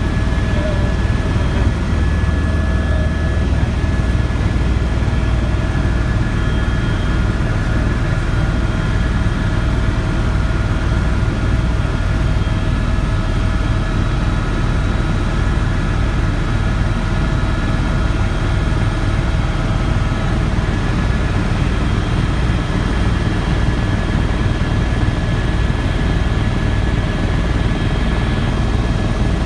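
Helicopter in flight heard from inside the cabin: a fast, low throb from the main rotor under a steady noise of engine and airflow, with several steady whining tones on top. A few of the whines drop away about two-thirds of the way through.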